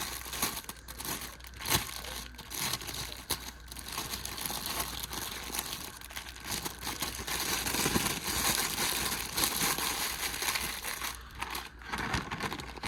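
A bag being handled, crinkling and rustling continuously, with scattered sharp clicks and the busiest handling near the middle.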